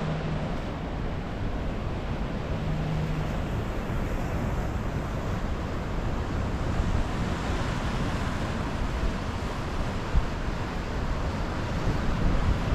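Ocean surf washing in over rocks, a steady rush of breaking water, with wind buffeting the microphone.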